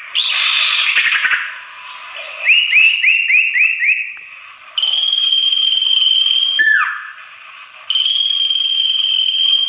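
Common iora (sirtu) lure calls: a harsh, noisy chatter at first, then a quick run of about five short rising-and-falling notes, then two long, steady high whistles, the first dropping sharply in pitch at its end.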